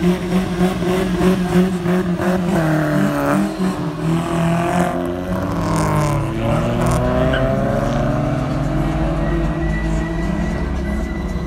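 Car engine revving hard during a spinning run, pulsing rapidly at first, then rising and falling in pitch as the throttle is worked.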